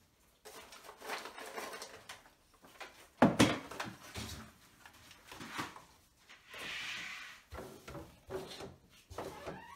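Household items being handled at an open cabinet drawer: plastic organizer trays and coffee pods rattling and knocking. There is one loud clunk about three seconds in as a galvanized metal caddy is set down on the countertop.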